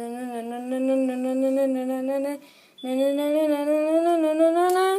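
A single voice holding two long wordless notes, the pitch creeping upward, with a short break about two and a half seconds in.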